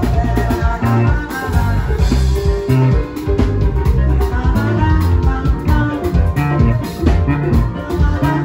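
Live band playing upbeat dance music, with electric guitar and a drum kit over a steady beat.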